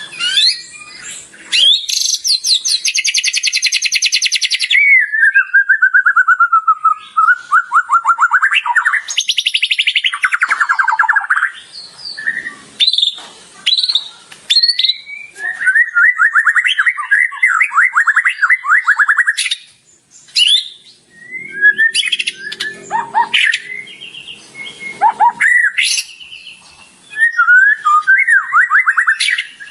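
White-rumped shama (murai batu) singing loudly in full song: a varied run of rapid trills, a falling trill, chattering stutters and whistled glides, with short pauses between phrases. The phrases include mimicry of other birds' calls woven into its song.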